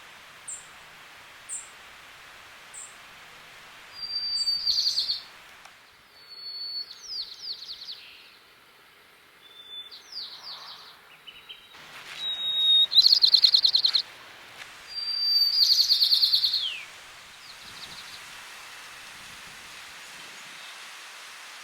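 White-crowned sparrow singing: several songs, each an opening whistled note followed by a fast trill, with a few short high notes before the first. A steady hiss lies underneath.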